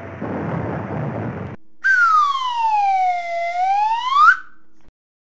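A noisy rumble cuts off about one and a half seconds in. Then a whistle-like tone with overtones glides slowly down and back up over about two and a half seconds, ending in a quick upward swoop, over a faint steady low hum.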